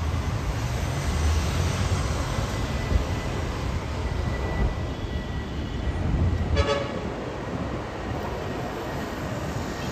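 Jet airliner (Airbus A319) climbing out overhead, heard as a steady low rumble while unseen behind cloud. A brief click comes about six and a half seconds in.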